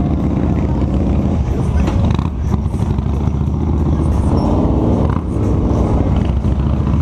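Cruiser motorcycle engines running at low speed: the rider's own bike close by and others around it as the group moves off slowly.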